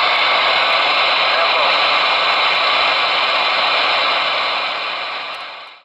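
Steady hiss of receiver static from a Galaxy DX-98VHP CB radio's speaker, right after the other station stops talking. It fades out near the end and stops.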